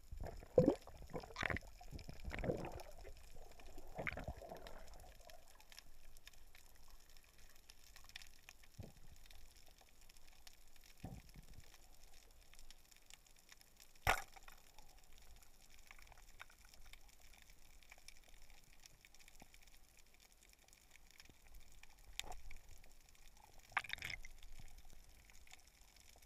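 Muffled underwater sound heard through a camera's waterproof housing: water swishing and gurgling in the first few seconds, then faint scattered clicks, with one sharp snap about halfway through.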